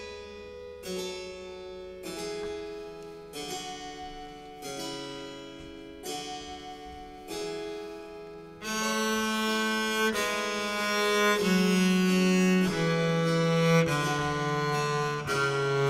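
Baroque chamber music: a harpsichord plays a slow succession of plucked chords, and about nine seconds in bowed strings come in and the music grows louder.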